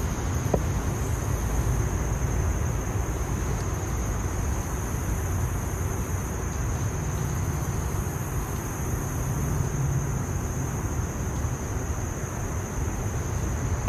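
Steady outdoor noise, mostly a low wind rumble on the microphone, with a constant thin high-pitched tone over it.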